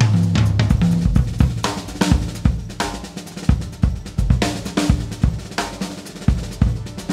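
Drum kit music: snare, bass drum, hi-hat and cymbal strikes in a loose, uneven pattern.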